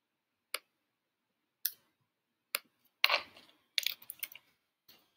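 Computer keyboard and mouse clicks during text editing: single sharp clicks about a second apart, then a quicker run of keystrokes three to four seconds in.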